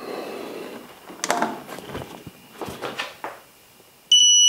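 Digital torque wrench's alarm, a steady high electronic beep starting near the end: its 135 N·m setting has been reached without the clutch slipping. Before it, a faint hiss and two short knocks as the wrench is pulled.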